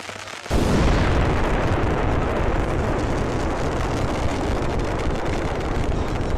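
Fireworks display: about half a second in, a dense barrage of explosions starts abruptly and runs on as a loud, deep, continuous din.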